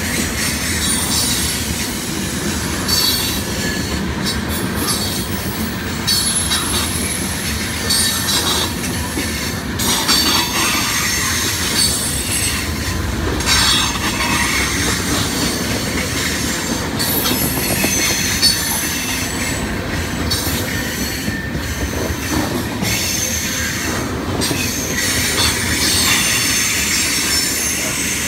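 Norfolk Southern freight train rolling past: a steady rumble of wheels on rail, with a high-pitched wheel squeal that comes and goes and some clacking over rail joints.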